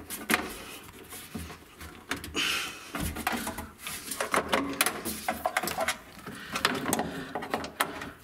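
Cables and connectors being handled and plugged into the back of an amplifier rack: irregular clicks, knocks and rustling.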